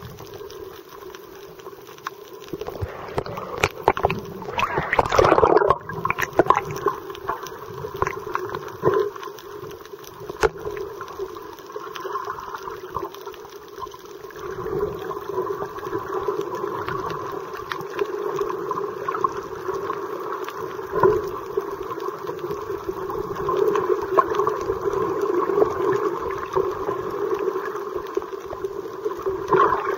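Underwater sound through a submerged camera: water gurgling and rushing as snorkellers kick past, over a steady hum. A loud surge of rushing water comes a few seconds in.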